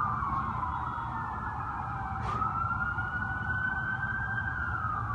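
A siren wailing slowly. Its pitch falls, rises again about two seconds in, then falls near the end.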